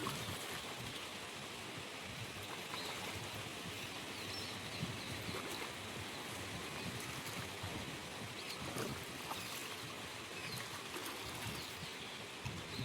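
Steady outdoor background noise, an even hiss with a few faint scattered clicks.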